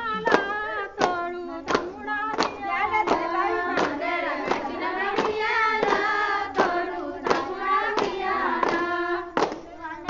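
Group of women singing a Bathukamma folk song in unison while clapping together in time, about three claps every two seconds.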